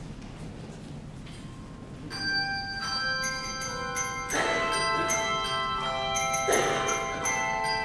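Handbell choir playing: after about two seconds of quiet the handbells start, ringing chords of overlapping notes that hang on, with two louder struck chords near the middle and later in the piece.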